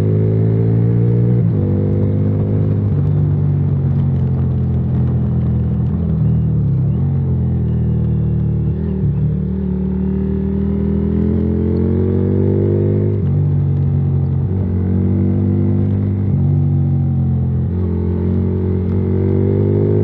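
Yamaha Virago XV535's 535cc V-twin with a debaffled exhaust, pulling along the road under throttle. Its note rises and falls, sags around the middle, then drops sharply and climbs again a few times near the end.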